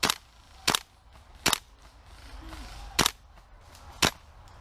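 Airsoft gun firing single shots: five sharp cracks at irregular intervals, about a second or more apart.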